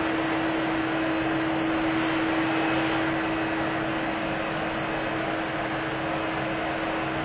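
Vacuum cleaner running steadily: the rush of air through the machine with a constant motor whine.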